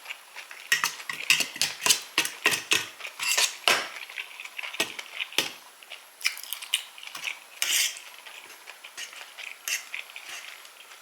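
Eating utensils clicking and scraping against a dish during a meal: a quick run of sharp clicks in the first four seconds, then scattered clicks.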